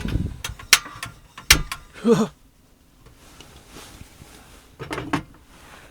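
A few sharp knocks and clicks of gear being handled in a small space, bunched in the first two seconds, with short murmured vocal sounds about two seconds in and again near the end.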